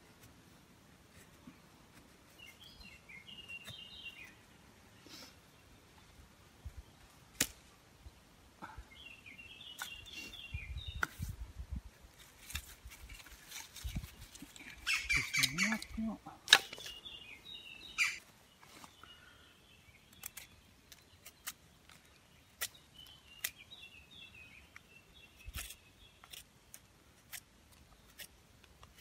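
Schrade SCHF36 knife blade shaving a wooden stick in short strokes, heard as scattered scrapes and sharp clicks. A louder burst of wood handling and rustling comes about halfway through. Birds chirp several times in the background.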